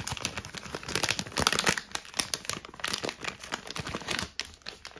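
Plastic wrapper of a Milka milk chocolate bar crinkling as it is unwrapped by hand: a dense, irregular run of crackles that thins out near the end.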